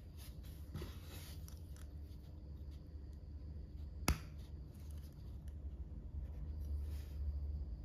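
Plastic Lego bricks handled in the fingers with soft clicks and rustles, then one sharp snap about four seconds in as the neck piece is pressed onto the body at a ball-joint connector. A low steady hum runs underneath.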